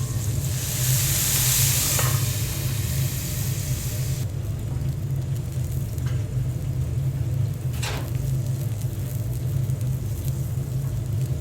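Food sizzling on a hot griddle, the sizzle cutting off suddenly about four seconds in. A steady low hum runs underneath, with a couple of light clicks.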